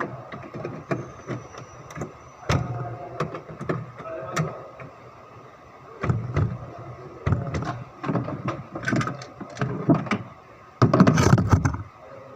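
Irregular clicks and knocks of work on a car engine while parts are handled, with a loud rushing burst lasting about a second near the end.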